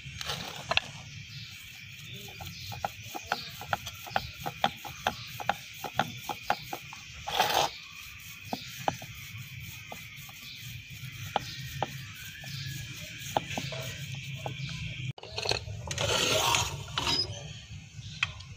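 Wooden rolling pin rolling paratha dough on a wooden board, with repeated light knocks and clacks, about two or three a second, over a steady low hum. Near the end the knocking stops and a short rushing noise follows.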